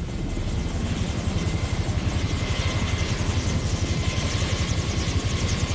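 Black Hawk helicopter running with its rotor turning, a rapid even beating of the blades under a steady high turbine whine.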